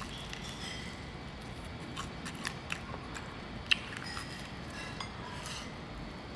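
Fried chicken being bitten and chewed close to the microphone: a few short crunches over steady room noise, the loudest a little under four seconds in.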